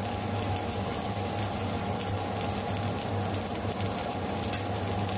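Marinated pork chops and pork belly sizzling and crackling on a wire rack over a grill tray, over a steady low hum.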